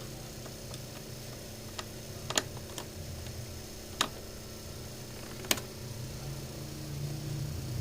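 A handful of sharp, scattered clicks and taps, hard objects knocking together, over a steady low hum.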